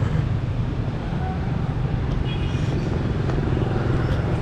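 Steady rumble of street traffic, with a brief high-pitched tone about two and a half seconds in.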